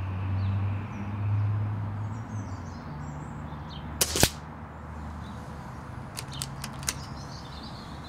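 A Shin Sun Career 707 Mk II PCP air rifle fires once about four seconds in: a sharp crack, and a quarter second later the smack of the pellet striking the target. A few lighter clicks follow about two seconds later.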